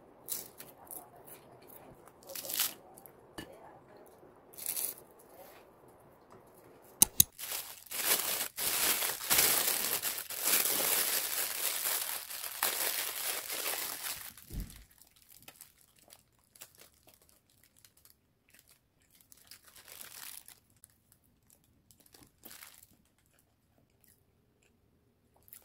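Thin plastic bread bag crinkling and rustling as a soft bread is handled and torn apart inside it. The crinkling is loud and continuous through the middle and thins to scattered rustles afterwards, with a few sharp clicks before it.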